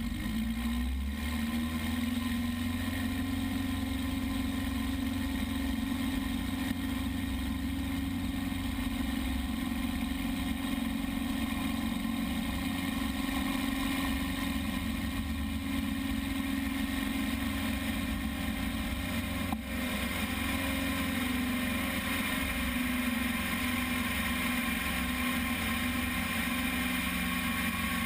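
Light aircraft's piston engine and propeller coming up to power in the first second or two, then a steady loud drone with rumble through the takeoff roll, the plane lifting off near the end. There is one brief dip in the sound about two-thirds of the way through.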